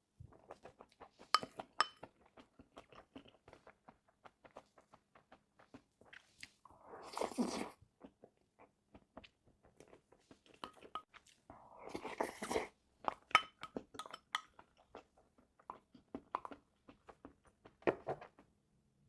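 Close-up chewing: many small crisp crunches and mouth clicks of food being bitten and chewed, with two longer, noisier sounds about seven and twelve seconds in.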